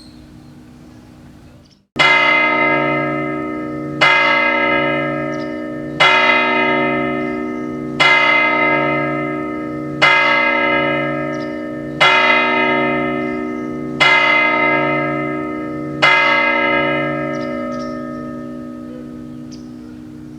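A tower clock bell striking the hour eight times, one stroke every two seconds, each strike ringing on and fading before the next; after the eighth the ring dies away slowly. Just before the first stroke a faint lingering ring cuts off.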